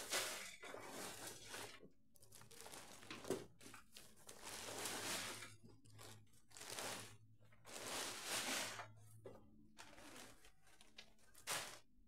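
30-liter black plastic grow bag crinkling and rustling in irregular bursts as it is pulled and peeled off a packed root ball of soil.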